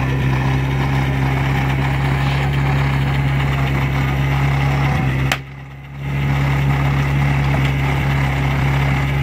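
Portable fire pump's engine running steadily at idle as a low, even hum. About five seconds in, a single sharp crack is followed by a brief half-second drop in all sound before the hum returns.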